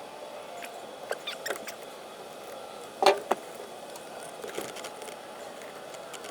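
Scattered light clicks and taps of parts and tools being handled at the steering column, with a sharper double knock about three seconds in.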